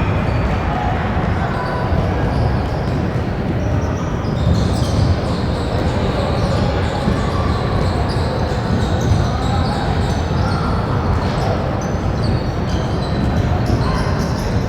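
Youth basketball game in a gym: a ball bouncing on the court over a steady murmur of players and spectators, echoing in the large hall.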